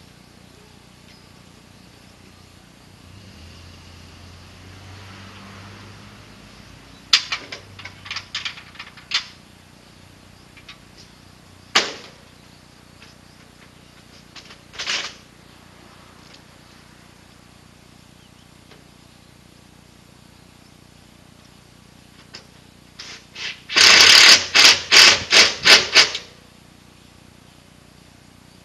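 A power driver runs in a loud burst of rapid pulses about two seconds long near the end, driving a fastener into the metal carport frame. Earlier come a few scattered sharp clicks and taps.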